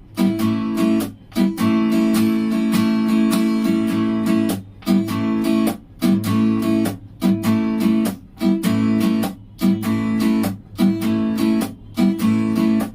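Guitar strummed in a 6-beat D-U-X-U waltz pattern (down, up, a muted chop, up). It repeats evenly about every 1.2 s, and each cycle has a short dead gap where the strings are muted.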